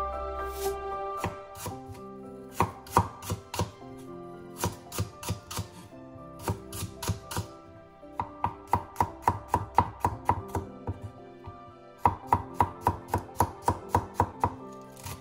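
Kitchen knife cutting on a wooden cutting board, first through rhubarb stalks and then slicing garlic cloves: quick runs of sharp taps, about three to four a second, in several bursts. Soft background music with held notes plays underneath.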